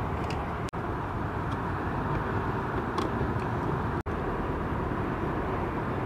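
Steady low outdoor background rumble with a few faint light clicks from a screwdriver tightening the wing screws of a plastic old-work electrical box in stucco. The sound drops out briefly twice.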